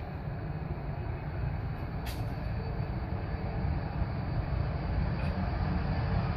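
Jet engines of a heavily loaded Boeing 737 running at takeoff power during its long takeoff run: a steady low rumble that slowly grows louder, with a short click about two seconds in.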